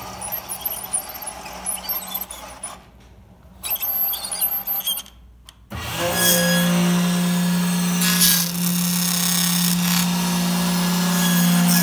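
Let-R-Edge channel letter forming machine at work on chrome coil strip. It is quieter and uneven at first, then from about six seconds in gives a loud, steady motor hum as it feeds and bends the strip.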